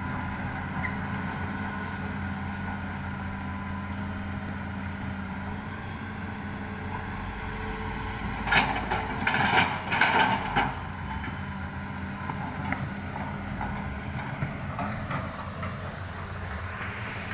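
Excavator's diesel engine running steadily, with a burst of loud clattering rocks about halfway through that lasts about two seconds.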